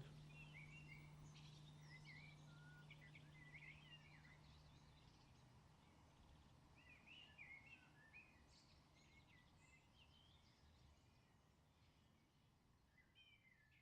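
Faint chirping and twittering of small birds, fading out gradually toward the end. A low steady hum runs under the first few seconds.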